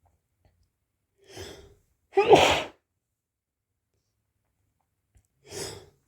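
A person sneezes: a short gasping in-breath, then a loud sneeze about two seconds in. Near the end a second gasping in-breath winds up the next sneeze.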